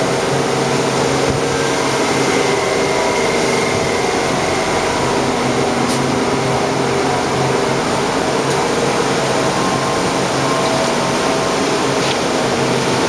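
Steady mechanical drone of running machinery, a low hum with several steady tones over an even whir, and a couple of faint ticks.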